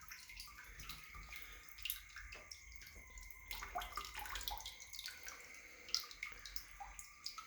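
Water dripping and trickling irregularly from an open shower into the tub as the plumbing drains with the main supply shut off, with a few sharper drops about 2 and 6 seconds in.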